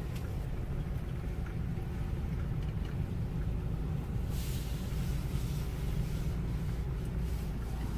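Truck driving: a steady low rumble of engine and road noise, with a brief rise in hiss about four seconds in.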